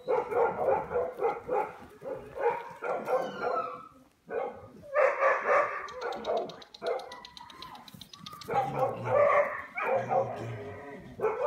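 A dog barking over and over in quick runs of short barks, with a few brief pauses.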